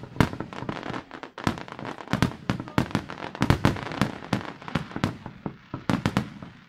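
Aerial fireworks display: a rapid barrage of shell bursts, several sharp bangs a second, with a noisy fizz between them.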